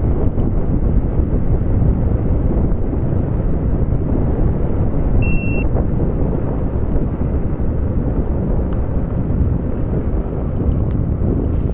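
Steady low rumble of wind and rolling noise on the microphone while riding along a trail. About five seconds in, a single short electronic beep sounds.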